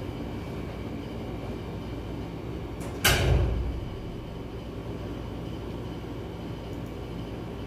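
Steady low rumbling background noise, with one sudden loud bang about three seconds in that dies away over about half a second.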